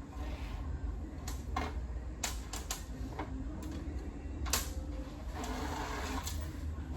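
Small hardware such as bolts and nuts being handled and sorted: scattered light clicks and clinks with some rustling, over a steady low hum.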